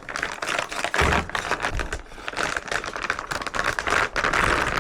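Rapid clicking, scraping and rustling of cardboard and plastic packaging being handled as a motherboard is unboxed, with a denser crinkling near the end.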